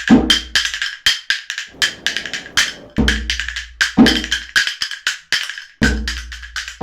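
Percussion-driven music: quick, sharp clicking hits in a busy rhythm, with a deep bass hit every second or two.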